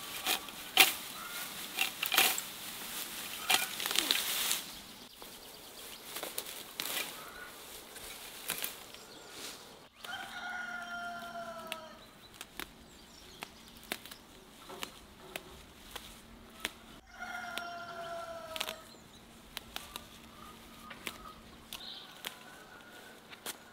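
Leaves rustling and stems snapping as garden greens are cut with a small knife and picked by hand, densest and loudest over the first few seconds. A rooster crows twice in the background, each crow a falling call of about two seconds, about ten and seventeen seconds in.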